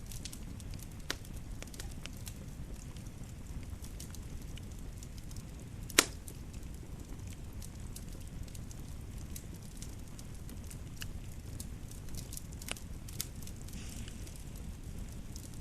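Wood fire crackling in a fireplace: a steady low rumble of burning with scattered small pops and snaps, and one sharp, much louder pop about six seconds in.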